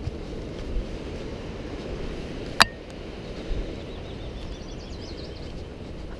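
Hiker walking on a dirt trail: footsteps and gear rustle over a steady low noise. One sharp click about two and a half seconds in, and faint high bird chirps a little later.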